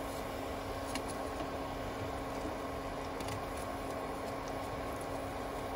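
Oil sizzling steadily around buns shallow-frying in a pan, over a steady hum, with a few light clicks as metal tongs turn the buns.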